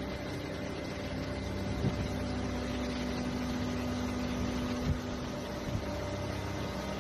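A steady motor hum over a background rush, with a few brief thumps about two, five and six seconds in.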